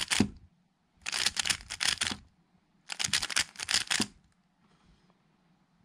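A MoYu RS3M 2020 magnetic 3x3 speedcube being turned quickly through a Gd perm (G perm) algorithm, giving runs of rapid clicks: the end of one run, then two more runs of about a second each, the last ending about four seconds in.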